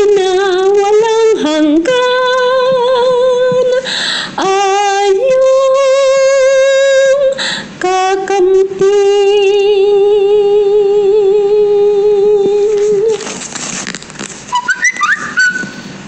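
A woman singing a Tagalog hymn, with long held notes and vibrato; the last note is held about five seconds before she stops. Near the end there is a short noisy stretch and a brief high squeak.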